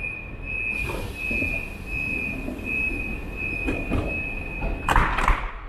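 ICE train's door-closing warning: a high, steady beeping while the two sliding plug doors close, with a hiss from the door mechanism starting about a second in. Near the end the beeping stops and the doors shut with a couple of loud clunks.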